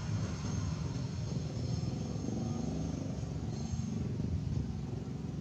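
Outdoor ambience: wind rumbling on the microphone, with a faint distant vehicle engine humming in the middle.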